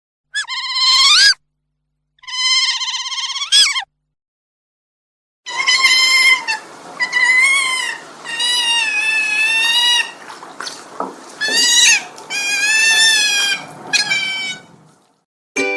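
An animal calling in high, wavering cries: two short cries near the start, then after a pause a run of longer cries, one after another.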